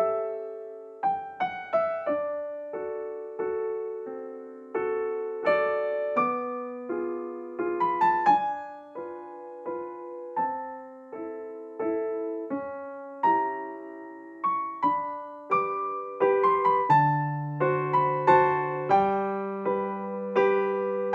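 Soft background piano music: a slow melody of single struck notes over chords, each note dying away.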